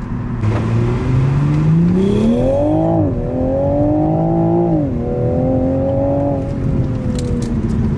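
A bone-stock 2021 Toyota Supra's engine and exhaust, heard from inside the cabin, accelerating hard: the revs climb, drop sharply at an upshift about three seconds in, climb again and drop at a second upshift about five seconds in, then hold and ease off near the end.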